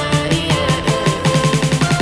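Background music: an electronic pop track with a fast, steady beat.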